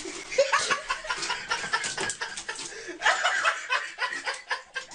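A person laughing and chuckling in short, choppy runs, with a brief pause about halfway through.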